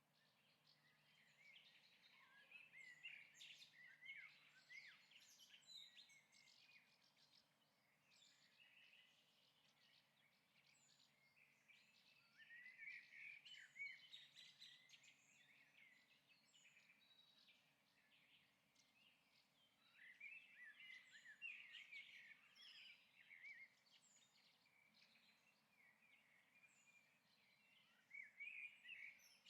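Faint stock sound effect of small birds chirping, in four bursts of quick, busy twittering a few seconds long, over a low steady background hiss.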